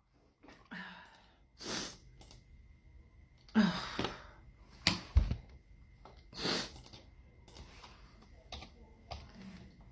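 A person sniffling and breathing in about eight short, noisy bursts just after a sneezing fit. A faint steady high tone runs beneath from about two seconds in.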